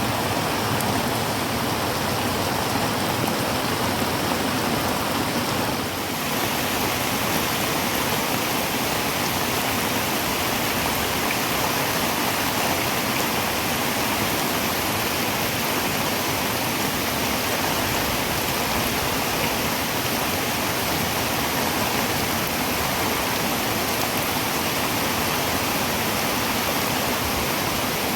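Heavy rain falling on a tin roof as a steady, dense hiss. About six seconds in, it briefly dips and then carries on a little brighter.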